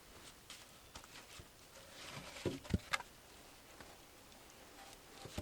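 Wooden bed slats being pulled out of a bushcraft bed frame: scattered light clicks and rustles, with a few louder knocks about halfway through.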